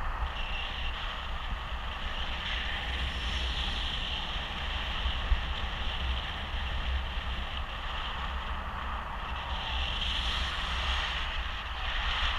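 Steady rush of wind over the camera microphone of a paraglider in flight, with a deep buffeting rumble and a hiss that swells about ten seconds in.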